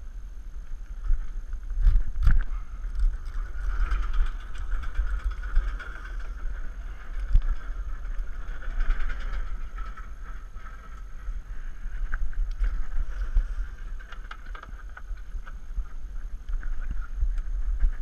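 Outdoor wind noise buffeting an action camera's microphone, a fluctuating low rumble with a steady rushing hiss, broken by a few sharp knocks, the strongest pair about two seconds in.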